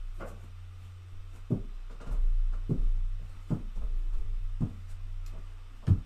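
A series of dull knocks about once a second as a person moves about a small room, over a low steady electrical hum.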